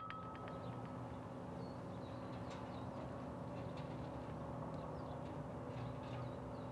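Outdoor ambience: a steady low background rumble with faint, scattered chirps of small birds.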